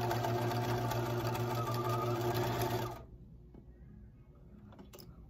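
Bernina sewing machine running steadily while top-stitching fleece, then stopping suddenly about three seconds in. A couple of faint clicks follow near the end.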